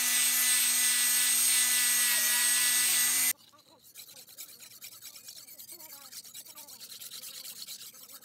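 Angle grinder running steadily with an abrasive disc against a steel cleaver blade, its motor whine cutting off suddenly about three seconds in. Then, much quieter, a steel cleaver blade rubbed back and forth on a wet sharpening stone in quick repeated scraping strokes.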